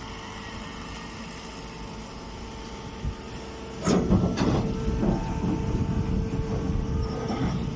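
A baling machine runs with a steady hum. About four seconds in, a louder, rough clattering noise starts suddenly and keeps going until near the end.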